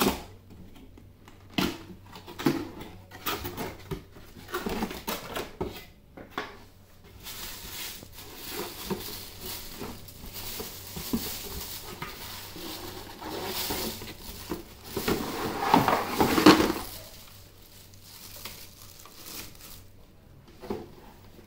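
Cardboard box being opened and its contents handled, with a run of knocks and taps over the first few seconds. Then a long rustle and crinkle of the plastic bag around the megaphone as it is pulled out of the box, loudest about sixteen seconds in, fading to light handling near the end.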